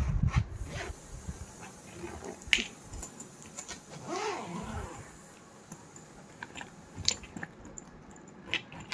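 A fabric suitcase being zipped shut and handled: a zipper pull drawn along the soft-sided case, with rustling of the fabric and scattered sharp clicks. Near the end, the zipper pulls are fitted into the case's small plastic combination lock.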